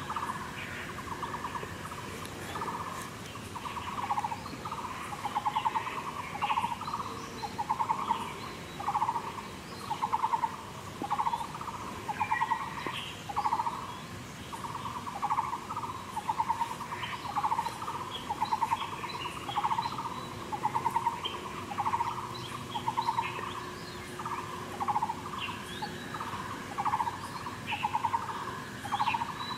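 An animal call: a short, burry note repeated steadily about three times every two seconds, with faint higher chirps in between.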